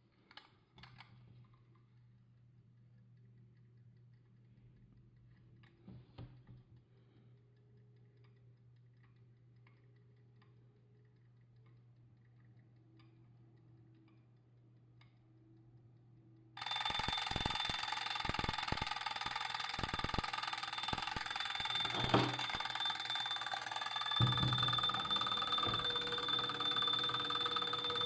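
Antique French L&A carriage alarm clock: after a faint hum and a few small clicks, its alarm bell starts ringing suddenly about two-thirds of the way in and keeps ringing loudly.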